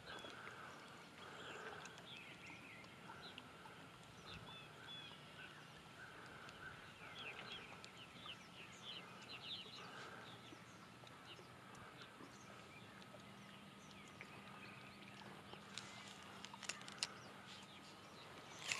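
Faint chirping and calling of birds over quiet lakeside ambience, with a few faint clicks near the end.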